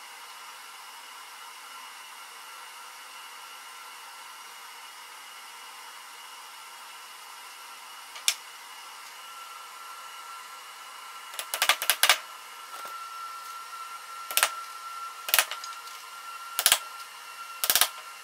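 Wooden dowels being set into glued holes in a wooden rail: a single knock, then a quick cluster of clicks and taps, then four sharp knocks about a second apart. Under them runs a steady hiss with a faint high whine.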